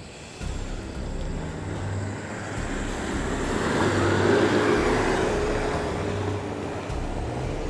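Engine of a lifted 4x4 SUV on mud tyres pulling as it drives past and up a muddy, grassy slope. It grows louder to a peak about halfway through, then eases off as the vehicle climbs away.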